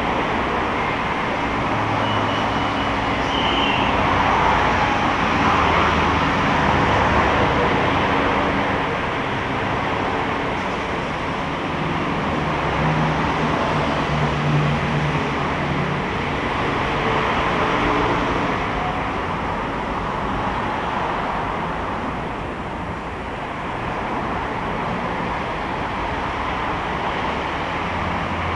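BTS Skytrain car running along the elevated line, heard from inside the carriage: a steady rolling rumble with low motor hums that come and go.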